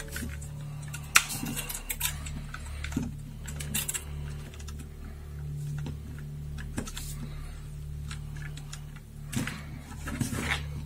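Plastic parts and wire connectors of a robot kit clicking and rattling as they are handled, with scattered sharp clicks over a steady low hum.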